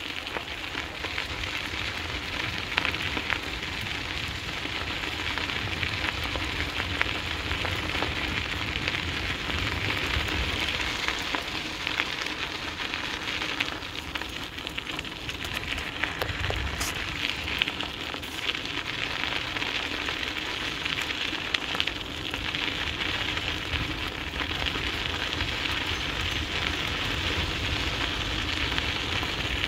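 Dog scooter's tyres rolling over a dirt trail behind two running sled dogs: a steady crackling hiss with a few sharp clicks.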